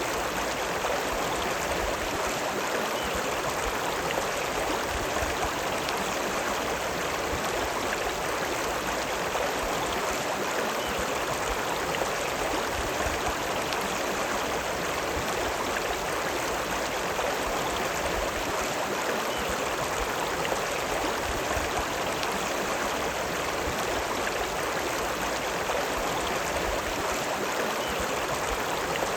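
The River Lune running: a steady, even rush of flowing water with no change in level.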